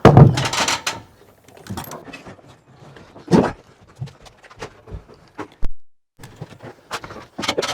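Scattered wooden knocks and thuds from house framing as lumber is handled and set in place. The loudest thud comes right at the start, followed by lighter irregular knocks.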